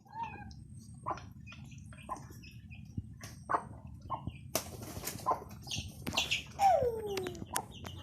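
Six-month-old broodstag (young gamecock) making short, scattered clucks and chirps. About six and a half seconds in it gives one short, squeaky call that falls in pitch, a young cockerel's attempt at a crow.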